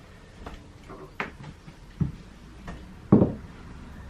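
A few separate household knocks and thuds, like a cupboard or door being handled, the loudest about three seconds in.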